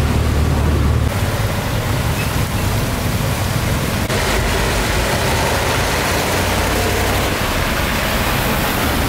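A motor vehicle engine running close by. Its low hum cuts off about a second in, leaving a steady broad hiss that gets brighter near the end.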